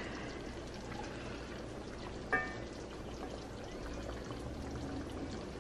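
Birria beef broth bubbling at a simmer in a pot while a metal ladle dips in and pours the liquid back, skimming off the fat. A short metallic clink about two and a half seconds in.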